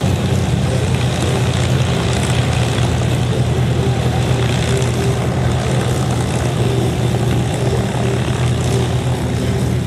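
A North American T-6 Texan-type trainer's radial engine and propeller running steadily as the plane taxis along the runway.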